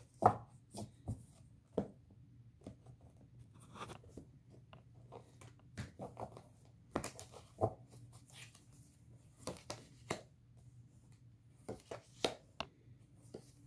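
Tarot cards being shuffled and handled, with irregular soft clicks and slaps as the cards are riffled and laid down on the table.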